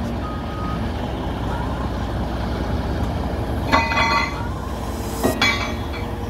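Diesel engine of heavy construction equipment running steadily. A short tone sounds about half a second in, and two brief high-pitched sounds stand out about four and five seconds in.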